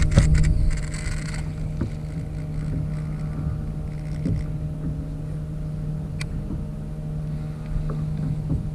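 Steady low rumble of wind and water around an anchored kayak, under a constant low hum. A short rustle of handling comes in the first second or so, and a single sharp click about six seconds in.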